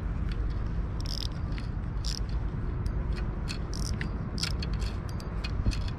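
Spinning reel being cranked to retrieve line, its gears giving irregular ticks, over a low wind rumble on the microphone.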